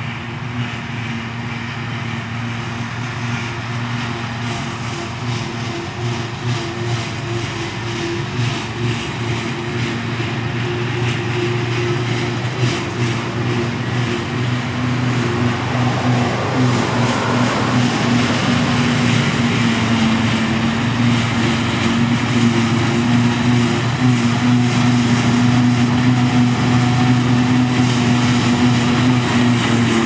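New Holland FX60 self-propelled forage harvester working under load, picking up and chopping grass silage from the windrow, with the tractor drawing the silage trailer alongside. A steady engine hum and machine noise grow slowly louder as the machines come closer.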